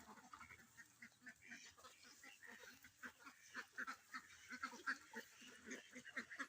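A flock of domestic ducks quacking, many short calls overlapping, getting busier and louder from about halfway through.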